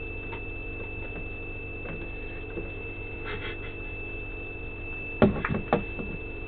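Steady electrical hum with a constant thin high-pitched whine, and a quick cluster of knocks and clicks about five seconds in as a hand handles the cockpit panel.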